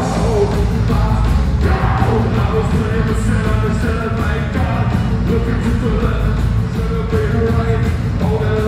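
A live rock band playing loudly, recorded from within the crowd, with heavy bass and a steady drum beat. The full band comes crashing in at once right at the start after a brief quieter dip.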